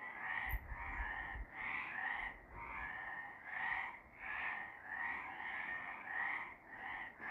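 A chorus of several frogs calling, overlapping calls about half a second long coming one after another, roughly two a second. A brief low rumble lies under the calls in the first few seconds.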